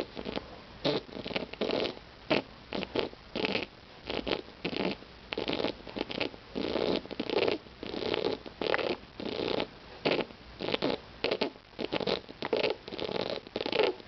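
A pigeon's wheezing, rattling breathing: a quick, uneven series of raspy breath sounds, about two a second, the rales of a respiratory problem.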